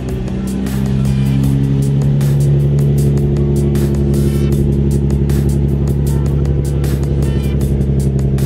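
Background music with a steady beat, over a Nissan 350Z's 3.5-litre V6 running as the car creeps forward at low speed.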